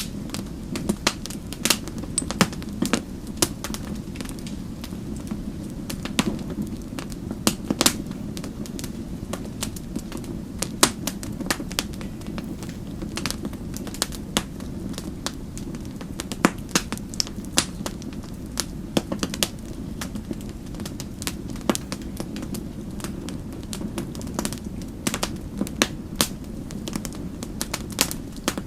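Wood fire crackling in a fireplace: irregular sharp pops and snaps, several a second, over a steady low rumble of burning.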